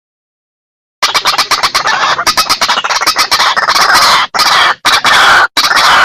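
White-breasted waterhen calling, starting about a second in: a quick run of clicking notes, then loud, harsh, repeated croaking calls with short breaks between them.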